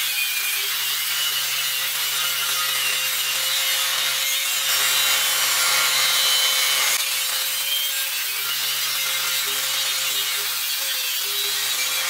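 Electric angle grinder grinding along the edge of a steel beam, a steady gritty grinding hiss over the motor's hum, a little louder in the middle.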